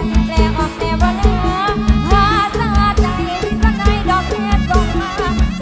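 Mor lam dance music from a rot hae sound-truck band: a wavering lead melody over a fast, steady beat with heavy bass.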